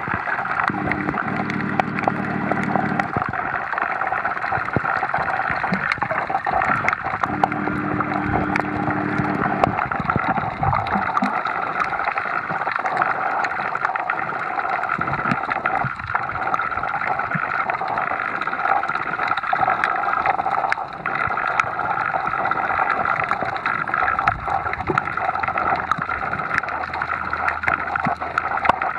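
Underwater reef ambience picked up by a submerged camera: a steady watery hiss dotted with many faint clicks. Twice, a low hum lasts about two seconds, once near the start and again about seven seconds in.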